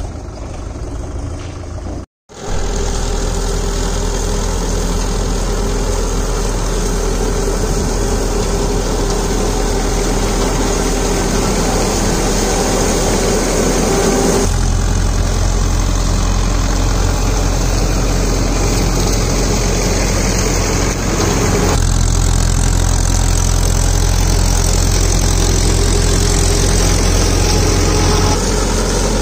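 Mahindra Yuvo 575 DI tractor's diesel engine running steadily under PTO load while the tractor-mounted sugarcane trash cutter's rotor chops dry cane trash: a loud, continuous mechanical drone. The sound drops out for a split second about two seconds in, and the low rumble shifts a couple of times later on.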